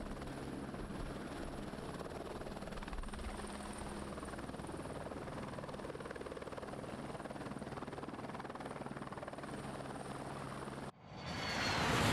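Helibras AS350 Esquilo police helicopter running steadily as it lifts off and hovers low over the helipad: rotor noise with a thin, high turbine whine. About eleven seconds in it cuts off suddenly and a rising whoosh sound effect takes over, growing loudest at the end.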